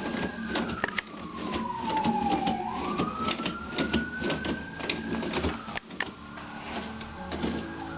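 Toilet paper roll being spun by a cat, rattling and clicking rapidly on its holder. A whining tone falls over a couple of seconds and then rises back up.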